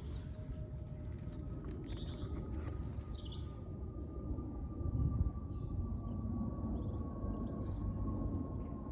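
Small birds chirping and twittering in short, scattered calls over a steady low background rumble.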